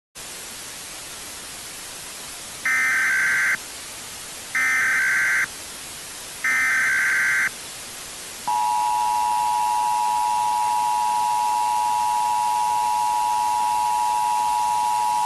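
Emergency Alert System tones over a steady static hiss. Three one-second SAME header data bursts, a rapid warbling screech, come about two seconds apart. About eight seconds in, the EAS two-tone attention signal begins, a steady dual-pitched drone.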